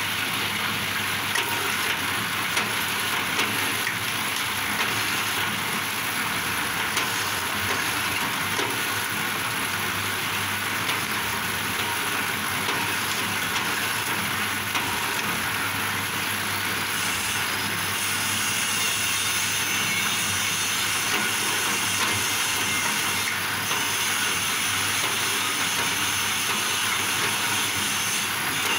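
Bamboo shaving machine for satay skewers running steadily, a continuous mechanical clatter and hiss over a low hum.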